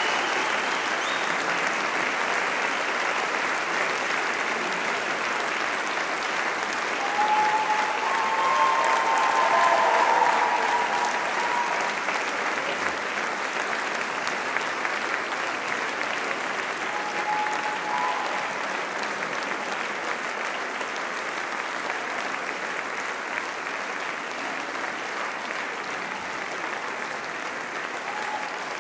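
Concert audience applauding steadily, swelling briefly about eight seconds in and then slowly dying down.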